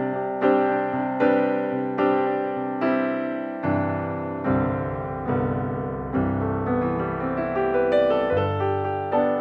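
Background piano music: slow, gentle notes and chords struck about once or twice a second, each ringing out and fading.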